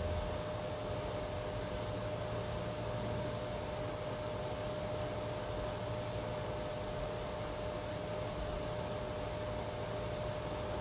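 Steady background hiss with a constant mid-pitched hum running under it; nothing else happens.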